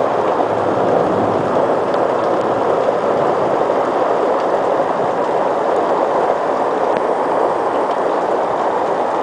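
Heavy monsoon-style downpour: a loud, steady rush of rain pouring down and splashing on surfaces, with a few faint drop ticks.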